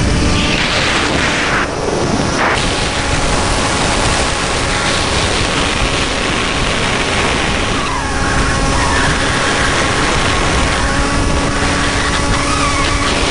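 Volantex Ranger EX RC plane in flight, heard from its onboard camera: its electric motor and propeller run with a steady whine under a heavy rush of wind on the microphone.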